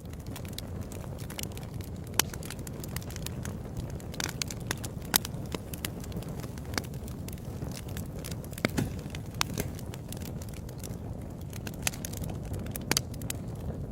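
Wood fire crackling in a fireplace: a steady low roar of flames with frequent sharp pops and snaps. The sharpest pops come about 2 and 5 seconds in, with a few more near the end.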